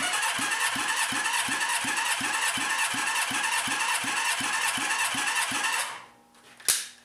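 Honda CB550 four-cylinder engine turning over on its electric starter without firing, for a cold, dry compression test, with an even pulse about three times a second as the cylinders come up on compression. The cranking stops about six seconds in, and a single sharp click follows near the end.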